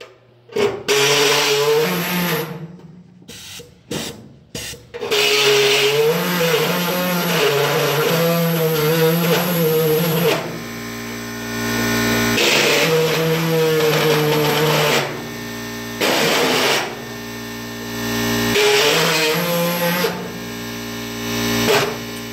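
A high-speed power tool cutting into sheet metal, its whine sagging and wavering under load. It starts with short trigger blips, then runs steadily, easing to a lighter, steadier hum several times where it comes off the cut.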